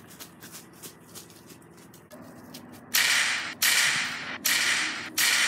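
Staged gunfire in a homemade war film: four loud shots about 0.7 s apart, starting about three seconds in, each a sharp crack that trails off in a hiss. Before them, light crackling of feet in dry leaves.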